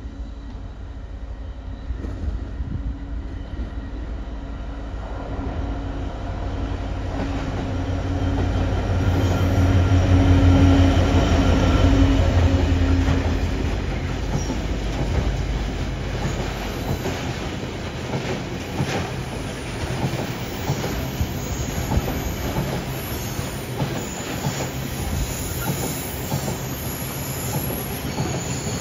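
GBRf Class 66 diesel locomotive with an EMD two-stroke V12 engine, its engine hum growing louder to a peak about ten seconds in as it passes. Then the long welded rail train's wagons rumble by, wheels clicking rhythmically over the rail joints with a high squeal.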